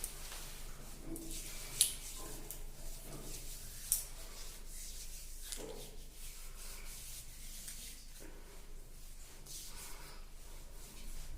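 Soft, continuous rubbing of skincare product being worked into skin by hand, with two short, sharp clicks about two seconds and four seconds in.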